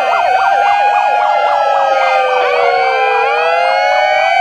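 Several megaphone sirens sounding at once. A fast warbling yelp overlaps slower rising-and-falling wails, and the yelp gives way to slower sweeps about halfway through.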